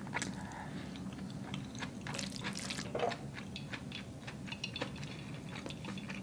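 Close-up mouth sounds of eating and drinking: soft chewing with small wet clicks, then sipping water through a plastic straw near the end. A brief louder noise about two to three seconds in.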